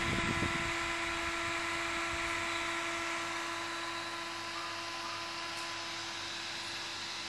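Steady whir and hum of a running computer test bench's cooling fans, with several constant tones over a hiss. There are a few low handling bumps in the first half-second.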